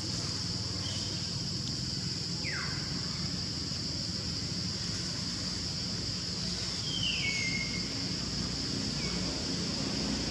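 Outdoor nature ambience: a steady high insect drone, with a few brief falling calls, the clearest about two and a half seconds in and around seven seconds.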